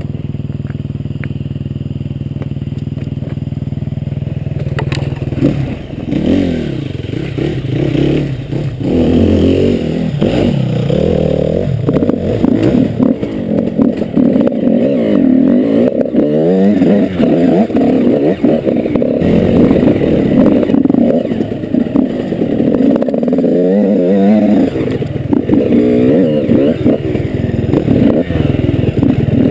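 KTM enduro motorcycle engine running at steady low revs, then from about five seconds in revving up and down over and over as the bike is ridden along a rough, rocky trail, with scattered knocks.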